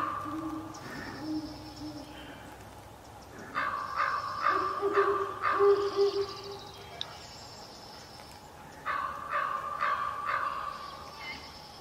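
Great horned owl hooting, a few low soft notes near the start and again about five seconds in, with other birds calling in sharper, higher series around it.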